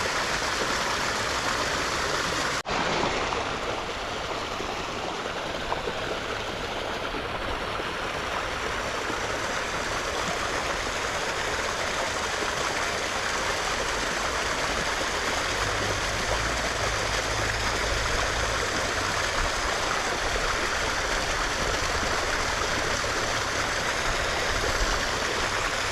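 Small, shallow creek's water running and splashing steadily. The sound drops out for an instant about three seconds in.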